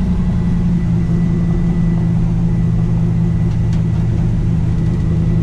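6-litre LS V8 of a 1965 Chevrolet C10 pickup running at a steady cruise, heard from inside the cab: a deep, even drone through a single-chamber Flowmaster exhaust that dumps out the sides.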